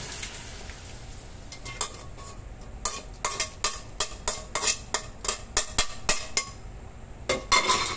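A metal spoon knocking and scraping against a metal cooking pot while mung beans are scraped out of it: a run of sharp clinks, about two or three a second, starting about two seconds in, with a louder clatter near the end.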